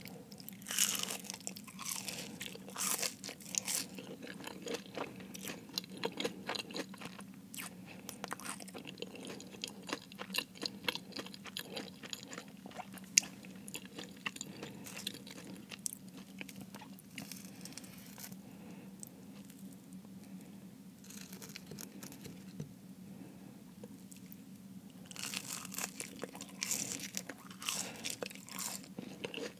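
Close-miked chewing and crunching of a spicy Jamaican beef patty's flaky pastry crust, mouth sounds with many small crackles. There are two longer stretches of crisp crunching, about a second in and again near the end.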